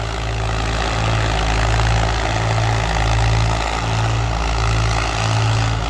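Powertrac 445 tractor's diesel engine running under heavy load as it pulls an 18-disc harrow through the soil. It gives a steady low drone that swells and dips about once a second. The owner calls this engine, its pump and its clutch worn out.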